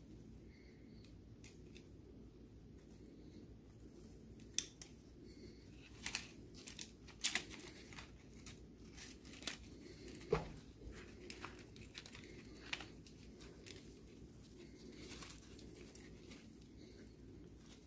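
Faint plastic clicks and taps from the clock spring (airbag coil) of a Renault Megane II steering-column switch as it is prised apart by hand and its flat ribbon cable is handled. The clicks come in a scattered run through the middle, over a low steady hum.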